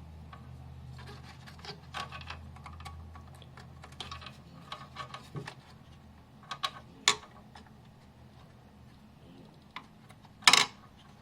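Small clicks and taps of a WD Black SN750 NVMe SSD being handled and seated into the M.2 slot inside a desktop case, with one louder clatter near the end. A low hum fades out about halfway.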